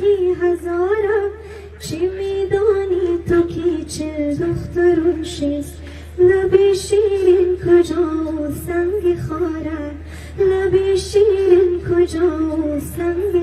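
A woman singing a Hazaragi song into a microphone: one strong melodic voice with ornamented turns, in phrases broken by short breaths about every four seconds. A steady low hum runs beneath.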